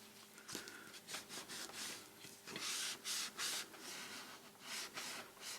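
Paper being handled and rubbed down by hand, a series of short, irregular scraping swishes as a glued piece is pressed into place.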